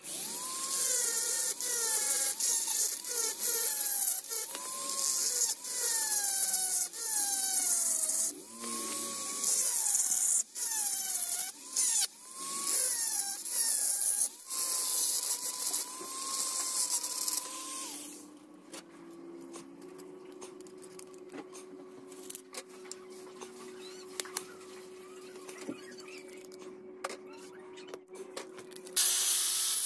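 Small rotary grinder with a burr, hand-held, cutting into an aluminium plate. Its motor whines and dips in pitch and recovers each time the burr bites. After about 18 seconds it goes much quieter, leaving a low steady hum and scattered clicks, and loud grinding noise starts again near the end.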